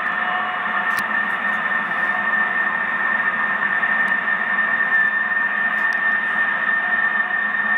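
Steady droning noise heard in the night sky, of unexplained origin, with a constant high tone held over a hiss and fainter lower tones.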